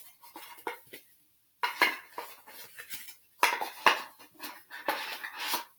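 Cardboard box and packaging being handled, with clicks, knocks and rustling scrapes in three short flurries.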